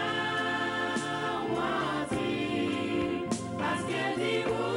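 A gospel song: a woman's lead voice with backing choir over a band with a steady beat, about one stroke a second.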